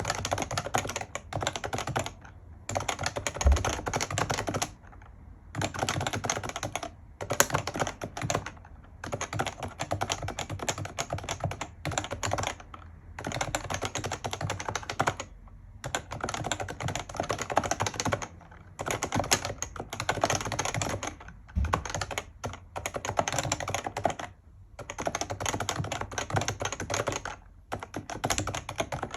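Continuous typing on an HHKB Professional JP keyboard, its Topre electrostatic-capacitive switches clacking in quick runs of keystrokes broken by short pauses.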